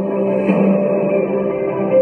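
Recorded music: a brief instrumental stretch of a pop ballad, with held chords and no singing.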